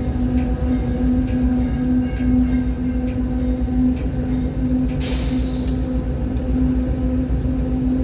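Train running with a steady low rumble and a droning tone, faint regular clicks just under once a second, and a short hiss about five seconds in.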